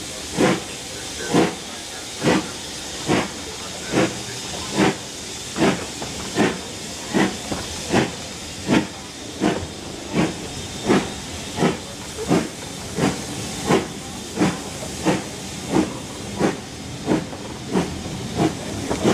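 Steam locomotive 75014, a BR Standard Class 4 4-6-0, working away from a stand, heard from a carriage window behind it. Its exhaust beats come evenly over a steady hiss and quicken from a little under one a second to about three every two seconds as the train gathers speed.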